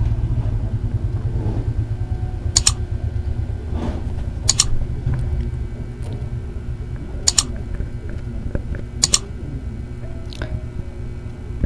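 A steady low rumble that wavers in loudness, with four sharp clicks spread a couple of seconds apart.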